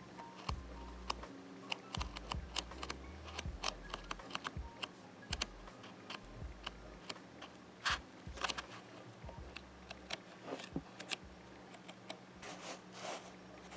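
Paper pages of a paperback manga volume being handled and turned close to the microphone: a run of small crisp clicks and taps, with longer paper rustles about eight seconds in and again near the end. A faint steady hum runs underneath.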